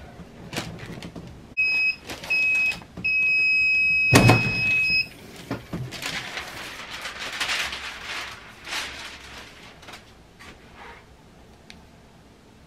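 Heat press timer beeping: two short beeps and then a longer one, with a heavy clunk from the press's platen during the long beep. Then paper rustling as the parchment cover sheet is handled on the pressed shirt.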